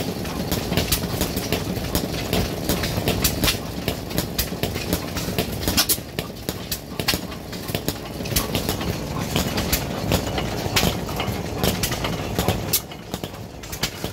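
Foos Jr. 6 hp hit-and-miss engine running, with many sharp, irregularly spaced clicks over a low rumble.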